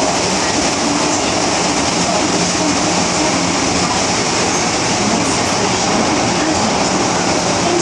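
MTR Tsuen Wan Line M-Train electric multiple unit running at speed, heard from on board: a loud, steady rumble of wheels on the rails and running gear, with no change in pace.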